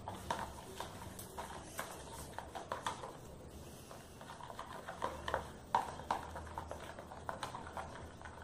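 A paintbrush stirring white glue and baking soda in a plastic tub to dissolve the soda, giving soft, irregular taps and clicks against the tub.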